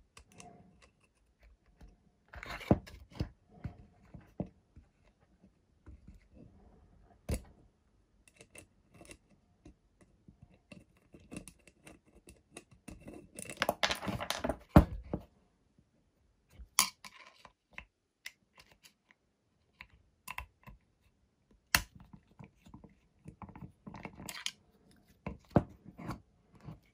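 A nut, hand tools and small metal parts being handled on a wooden workbench: scattered clicks, taps and knocks, with a denser clatter about fourteen seconds in.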